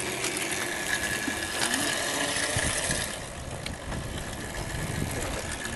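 Small electric scooter's motor and drive running as it rolls on asphalt, a steady high whine that fades about three seconds in as the scooter pulls away.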